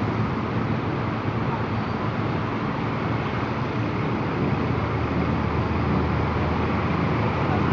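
A city bus driving through floodwater, with water sloshing at its wheels over steady motorbike traffic noise. Its engine hum grows louder about five seconds in as it passes close.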